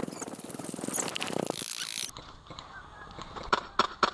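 A dense rattling noise for about the first two seconds, then a quick series of sharp snapping shots, roughly three or four a second, near the end: an airsoft gun firing single shots.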